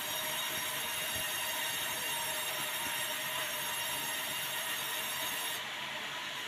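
Sawmill saw running and cutting a white meranti beam fed along a roller table: a steady whine of several high tones over a hiss. The highest part of the hiss drops away near the end.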